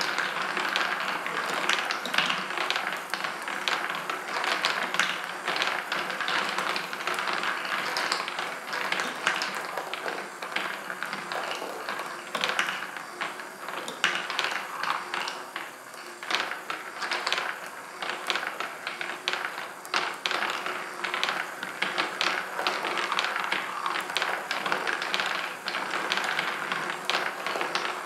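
A marble machine running: many metal balls rolling along its tracks, with a dense, irregular stream of clicks and taps as they strike the rails, each other and the holes, over a steady rolling rush and the lift mechanism's motor and gears.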